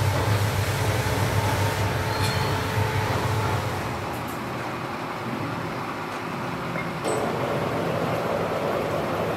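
Steady low hum and rumble of workshop machinery running, easing off about four seconds in and picking up again about seven seconds in.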